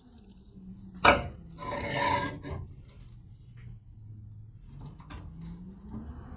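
Wooden boards being handled: a sharp wooden knock about a second in, then a short scraping rub of wood on wood, with a few light clicks later. A low hum runs underneath and rises in pitch near the end.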